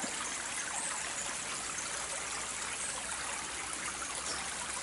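Shallow woodland stream flowing over stones, a steady even rush of water.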